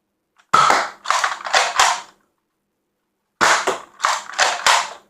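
Spring-powered Nerf blaster being cocked and fired over and over: two quick runs of about four sharp plastic clacks and pops each, with a pause between them.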